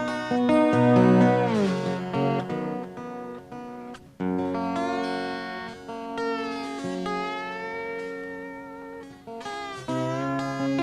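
Acoustic guitar playing an instrumental intro, sustained notes and chords with several that slide in pitch, as with slide playing. The music dips briefly about four seconds in before the next phrase comes in.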